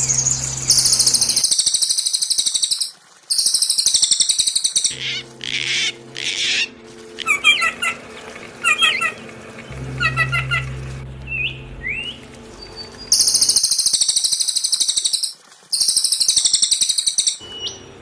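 Small songbirds singing: loud, very fast high-pitched trills in phrases of about one and a half to two seconds, several in a row with short breaks between them. In the middle come sharp repeated chirping notes and a rising whistle. A low steady hum sits under some of the phrases.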